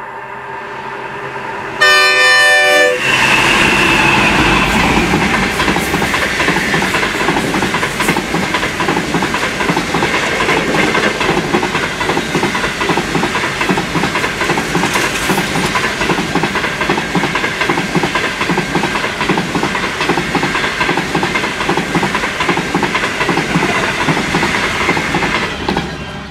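The Ghan's NR class diesel-electric locomotives approach and sound a horn blast lasting about a second. The locomotives then pass close, followed by a long rake of stainless steel passenger carriages, wheels running loud on the rails. The sound fades near the end as the last carriage goes by.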